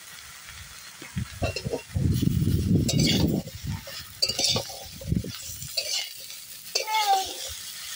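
Metal spatula stirring and scraping vegetables in a metal kadai, with light sizzling and clinks against the pan; the stirring is loudest about two seconds in. A short high call slides down in pitch near the end.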